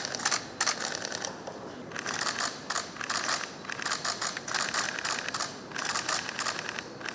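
Camera shutters of several photographers clicking in rapid, overlapping bursts, with brief pauses between runs.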